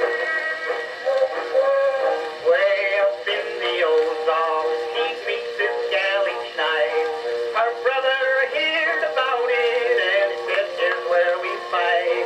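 Edison Blue Amberol cylinder recording playing back: a male voice singing with instrumental accompaniment, in thin, narrow-band sound with almost no bass.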